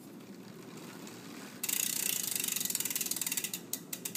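Bicycle rear freewheel pawls clicking rapidly as the wheel coasts once the cranks stop turning. The clicking starts suddenly about one and a half seconds in and thins into separate clicks near the end as the wheel slows.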